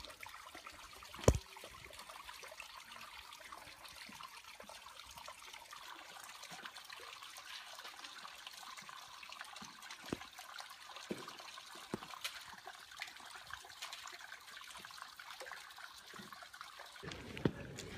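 A small stream trickling and splashing steadily over bare bedrock. A sharp knock sounds about a second in, with a few fainter knocks later on.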